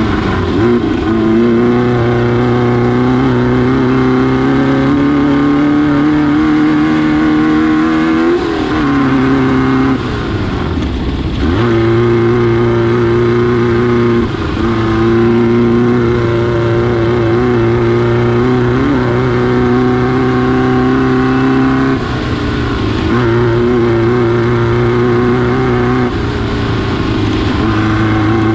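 Air-cooled VW engine of a Class 9 off-road race buggy running hard at steady high revs. Its pitch drops and picks back up several times, most clearly for a couple of seconds about a third of the way in, as the throttle is eased and reapplied. A rough rumble runs underneath.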